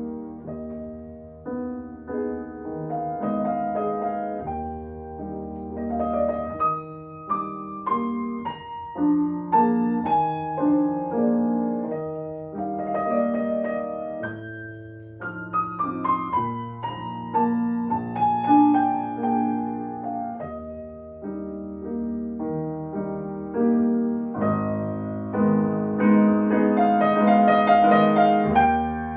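Solo piano playing a slow, lyrical passage: a melody with descending runs over sustained bass notes, growing louder near the end.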